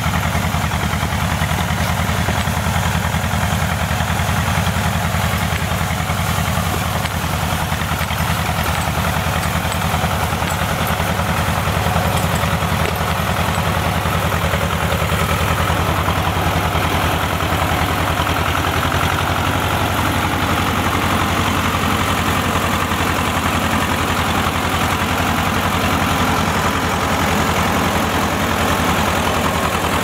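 Tractor engine running steadily at low speed as the tractor hauls a load of cut birch poles through tall grass.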